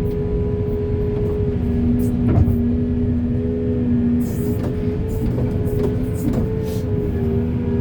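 Backhoe's diesel engine running steadily under working load, with a steady whine and a few short knocks from the machine as it digs, the clearest about two seconds in.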